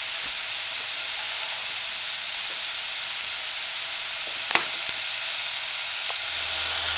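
Saltfish, chickpeas, onion and tomato sizzling steadily in a stainless steel saucepan over a gas burner on medium-low heat, with one short click about four and a half seconds in.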